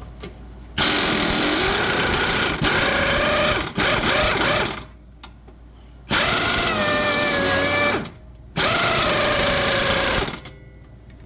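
Power tool, most likely an impact wrench with a 14 mm socket, run on a heated sway bar link nut. It goes in five bursts of one to two seconds, with short pauses between them and a whine that shifts in pitch within each burst.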